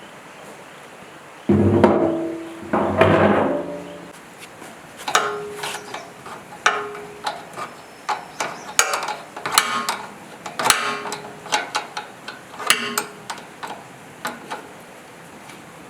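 Hammer blows on metal generator parts: two heavier ringing impacts in the first few seconds, then a run of sharp strikes at uneven intervals, each ringing briefly.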